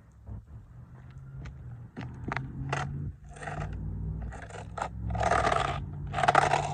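A combat boot crushing a toy car: a run of sharp cracks, then several longer crunching, scraping bursts, the loudest near the end.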